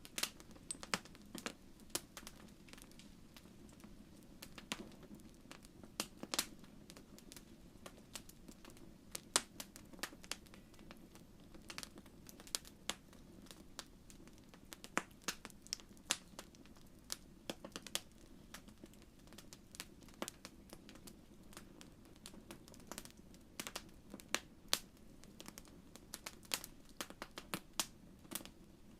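Wood fire crackling in a fireplace: a soft, low rumble of flame with frequent sharp, irregular pops and snaps.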